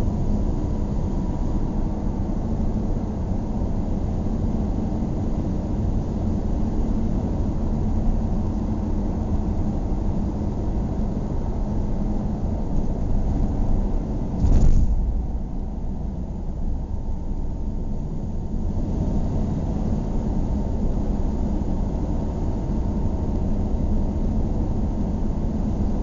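Car engine and tyre noise heard from inside the cabin while driving along at a steady speed, a constant low rumble. About halfway through there is one brief loud thump.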